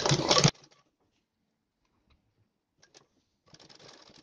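Sewing machine stitching with rapid clicking, which cuts off abruptly about half a second in. Near silence follows, with a couple of faint clicks and a soft rustle near the end.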